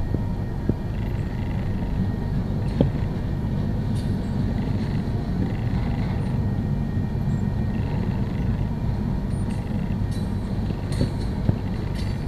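Freight train cars rolling past steadily, a low rumble of steel wheels on rail, with a few sharp clicks.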